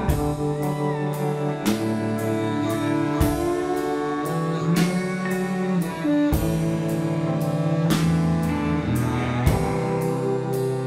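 Americana band playing an instrumental break with no vocals: electric guitar, upright bass and drums. Held and bending guitar notes ride over a steady cymbal beat of about two strikes a second.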